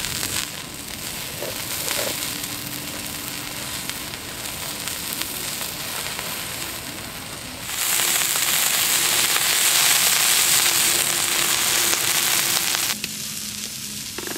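Slices of meat sizzling on a hot grill plate, a steady frying hiss that swells much louder about eight seconds in and drops away sharply about thirteen seconds in, leaving a low steady hum.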